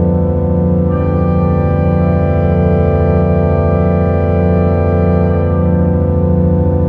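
Sustained drone music in organ-like tones: a held chord with a low tone pulsing evenly about one and a half times a second. Brighter high tones come in about a second in and fade out near the end.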